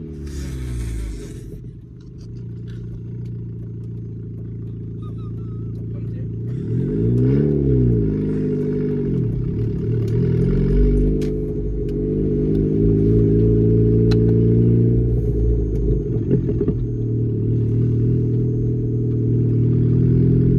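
Car engine under way with a manual gearbox, its pitch falling at the start, then revving up and dropping sharply a few times as gears are changed, and running more steadily in between and at the end.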